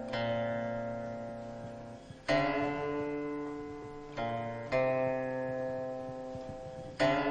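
Background music played on a plucked string instrument: slow, single notes and chords struck about every two seconds and left to ring out and fade.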